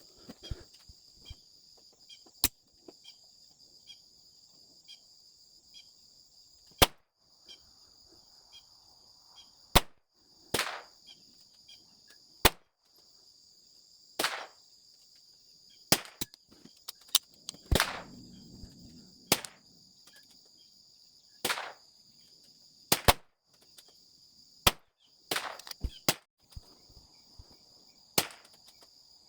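Repeated .22 LR shots from a Smith & Wesson Victory pistol firing RWS Rifle Match, single sharp cracks at irregular intervals of one to a few seconds, some louder than others. Insects buzz steadily underneath.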